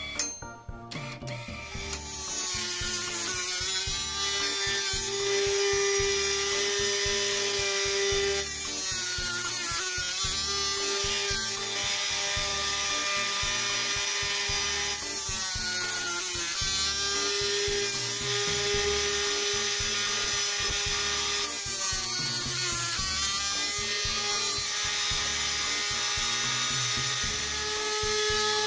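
Homemade miniature gear-cutting machine switched on with a click, then its motor-driven cutter running steadily while it mills teeth into a small brass gear blank. The sound changes in a repeating cycle about every six to seven seconds.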